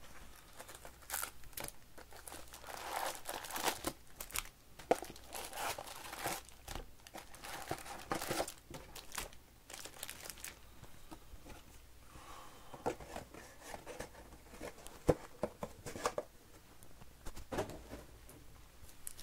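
Foil-wrapped baseball card packs crinkling and rustling as they are taken out of a cardboard hobby box and handled, with a few sharp taps and clicks among them.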